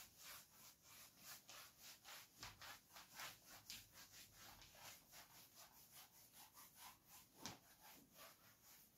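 Faint, quick scratching strokes on a writing surface, several a second, as the next question is written or the board is wiped, with one sharper stroke about seven and a half seconds in.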